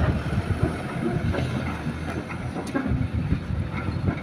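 Kobelco hydraulic excavator's diesel engine running steadily, with scattered clanks and knocks as it swings a loaded bucket over a dump truck's bed.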